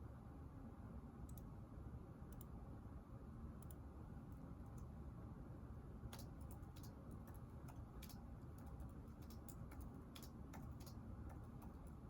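A steady low room hum with scattered light clicks, a few at first and then quicker, irregular runs of them from about halfway to near the end.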